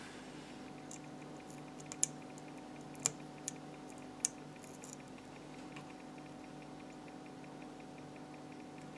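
Small sharp clicks and taps of tweezers and a soldering iron tip against a key fob circuit board while desoldering its surface-mount switches: four clear clicks between about two and four and a half seconds in, with a few fainter ones, over a faint steady hum.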